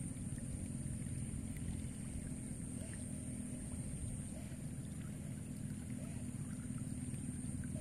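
Steady outdoor ambience: a low, fluctuating rumble of wind on the microphone with a constant high-pitched insect drone above it, and a few faint chirps.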